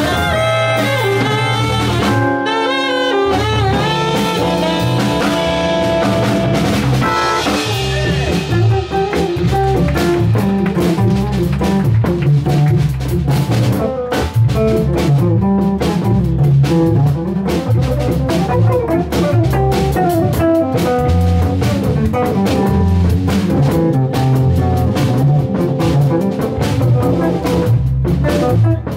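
Small jazz group playing live: drawbar organ, archtop electric guitar and drum kit, with a saxophone over the first part. Held notes open the passage, then the drums and comping grow busier from about eight seconds in.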